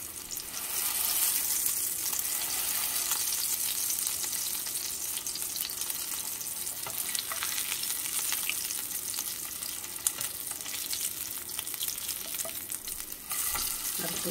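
Beef chapli kebabs sizzling in shallow oil in a frying pan, the sizzle growing louder about a second in as they are turned. A slotted spatula scrapes and taps on the pan now and then.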